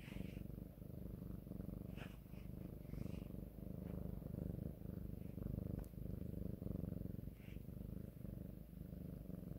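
Domestic cat purring close to the microphone, a steady low rumble with brief dips every second or two.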